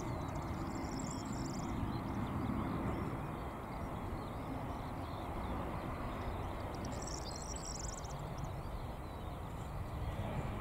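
Steady jet noise of an Air France Airbus A321 on approach and touchdown, with bird calls chirping in quick runs at the start and again about seven seconds in.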